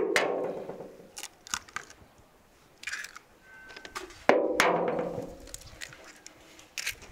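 Metal cookware struck or set down twice, each clang ringing out and fading over a second or two, with a few light clicks in between.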